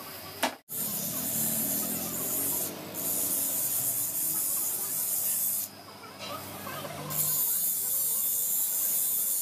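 A steady high-pitched hiss that breaks off abruptly twice: briefly about three seconds in, and for over a second near six seconds in.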